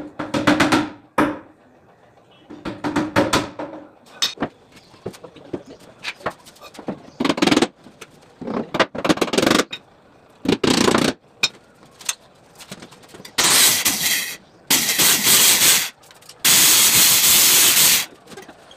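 Scattered knocks and scrapes of wood being handled, then a handheld electric power tool cutting wood in three runs near the end, the last the longest.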